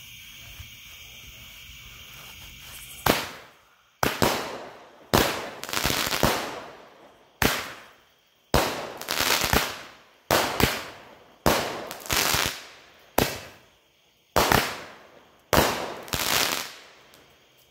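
Wild Stallion 9-shot consumer fireworks cake firing. Starting about three seconds in, its shots go off about a second apart, each a sharp thump as a shell leaves the tube, followed by the louder burst of the shell breaking in the sky.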